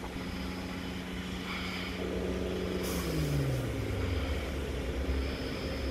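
Sydney Trains Millennium (M set) electric train standing at the platform with its equipment humming steadily. About three seconds in there is a short burst of air hiss, and a tone then slides down in pitch as a machine winds down.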